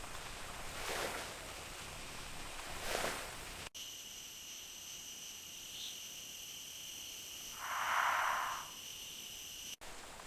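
Rainforest ambience: a few brief rustling swells, then, after an abrupt cut about four seconds in, a steady high-pitched insect drone with one short call of about a second near the end.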